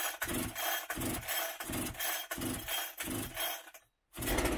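Two-stroke chainsaw being pull-started: the recoil starter rope is yanked about twice a second with a rasping stroke each time, and the engine is turned over but has not yet caught.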